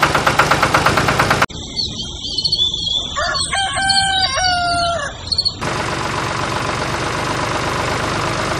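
An engine chugging with a steady knock, about seven beats a second, cuts off about one and a half seconds in. A rooster crows one long call while small birds chirp. A steady engine-like noise then returns to the end.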